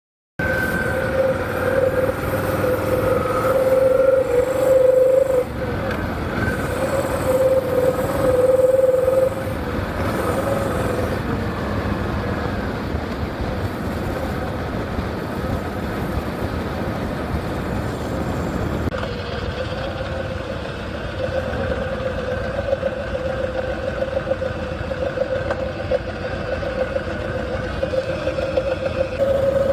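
1985 Harley-Davidson FXSB V-twin and its chain-primary driveline running with a steady whining tone. This is the owner's unexplained noise that comes on only when the bike is hot, source not yet found.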